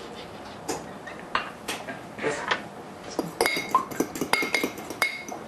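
Eggs being cracked into a small ceramic dish, a few sharp taps and cracks, then from about three seconds in a fork beating the eggs against the dish in fast, ringing clinks of metal on ceramic.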